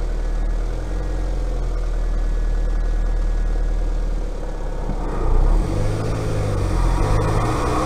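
Turbocharged Mazda MX-5 Mk1 engine with a Garrett TD04 turbo, recorded from inside the engine bay: idling steadily, then revved lightly up and down from about five seconds in.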